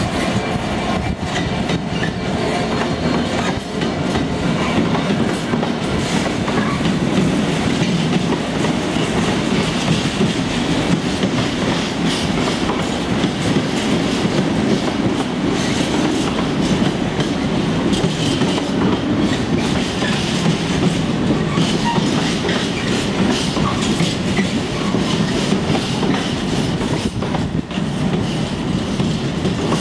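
Container flat wagons of a long freight train rolling past at speed: a steady, loud rumble with repeated clickety-clack of the wheels over rail joints.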